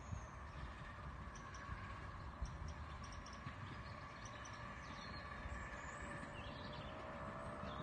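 Miniature steam locomotive approaching faintly from a distance, with birds chirping; a faint rising squeal comes in near the end.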